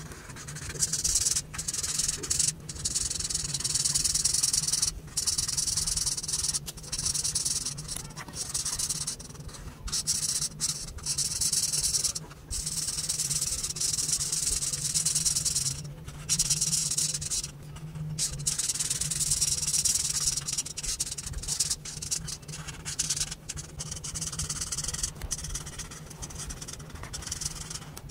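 Twin-tip marker rubbed back and forth across paper while colouring in: a hissy scratching in long stretches of strokes, broken by short pauses between passes. A steady low hum runs underneath.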